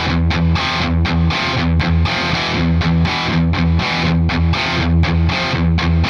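Distorted electric guitar played through a Kemper Profiler amp profile: a rhythmic riff of chopped chord stabs with short breaks between them.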